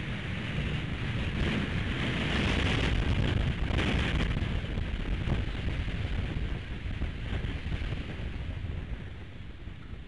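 Strong wind buffeting the nest-camera microphone: a gust builds over the first few seconds, peaks about three to four seconds in, then eases off.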